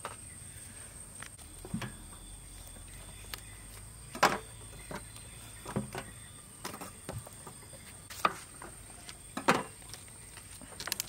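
Irregular knocks and taps, the loudest about four seconds in and again near nine and a half seconds, over a steady high-pitched tone.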